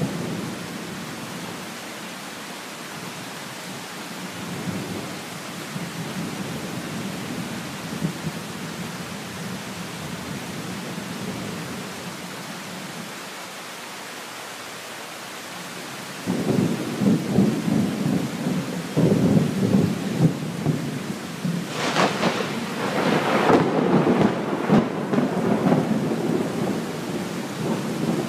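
Tropical thunderstorm: steady heavy rain, then about halfway through a long rumble of thunder sets in and grows louder, with sharper cracks near the end.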